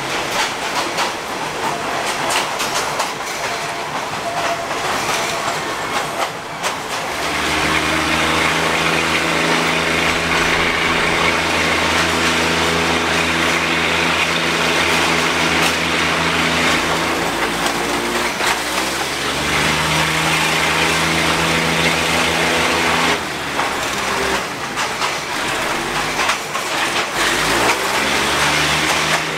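Diesel railcar running along the line, heard from inside the carriage through open windows: wheels on rail with a clattering rattle at first, then from about seven seconds in the engine's steady drone under power joins in. The engine note shifts pitch a couple of times and fades briefly near the end before picking up again.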